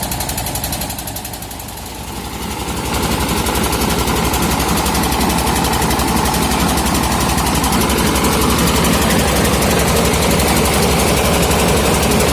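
Engine-driven portable rice milling machine running with a fast, even chugging pulse, growing louder and fuller about three seconds in.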